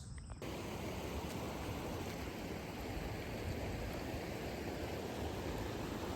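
A steady, even rushing noise that starts abruptly about half a second in and holds unchanged.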